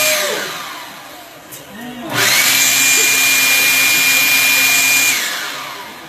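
Electric leaf blower, used as the dishwasher prototype's water-drying blower, switching off with its whine falling away, then starting again about two seconds in with a rising whine, running steadily and winding down again near the end.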